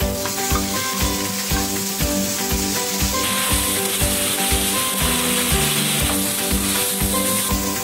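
Chopped tomatoes sizzling and frying as they go into a hot pan and are stirred with a spatula; the sizzle grows louder about three seconds in. Background music with a steady beat plays underneath.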